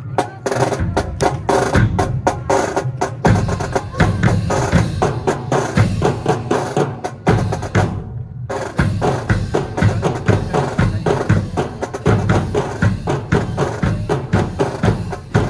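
Marching drums of a drill team's drum corps playing a fast, steady cadence of sharp strokes, with a brief break a little past halfway before they resume.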